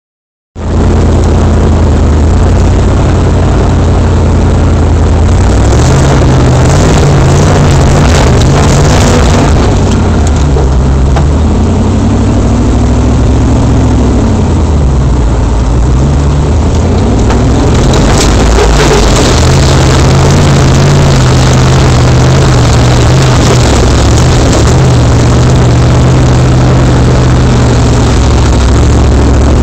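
Land Rover engine heard from inside the cab as it crawls off-road, the revs rising and falling again and again over rough, muddy ground.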